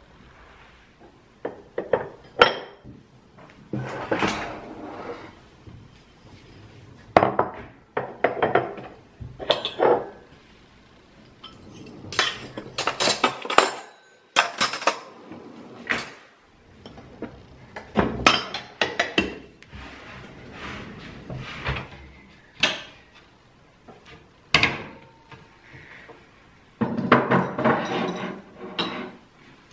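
Kitchen clatter: metal cutlery clinking as it is picked from a drawer tray, with dishes and glass jars knocked and set down, in many short bursts with pauses between.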